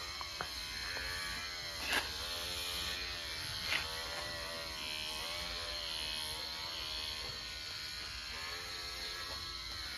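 Electric pet hair clippers buzzing steadily as they cut a dog's fur, the hum wavering slightly in pitch as the blades meet the coat. Two sharp clicks, about two seconds in and again shortly before four seconds.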